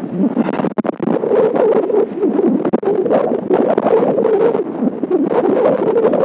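Wind buffeting the microphone: a loud, steady rushing noise that dips briefly just before one second in.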